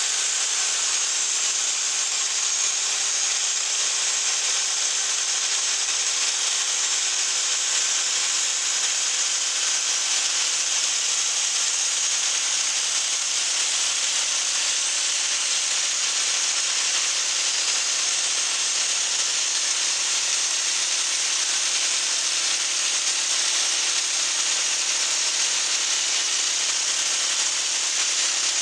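Homemade walk-beside band sawmill running steadily, its blade sawing lengthwise through a log.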